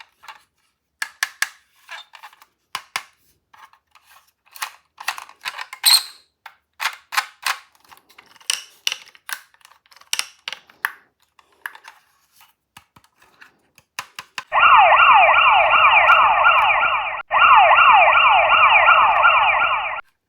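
Small plastic toy cars clicking and clattering as they are handled, then, about two-thirds of the way in, a toy ambulance's electronic siren sounding loudly for about five seconds: a fast, repeating falling wail with a short break in the middle.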